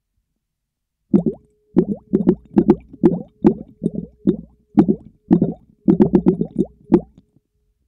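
Air bubbles blown through a tube into a bowl of water, heard underwater through a latex-covered microphone: about a second of silence, then a string of low bubbling blips, a few a second, coming faster in a quick cluster toward the end and stopping shortly before the close.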